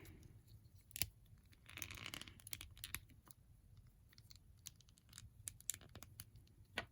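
Faint plastic clicks and light scraping of small action-figure parts being handled and fitted together, with a sharper click about a second in and another near the end.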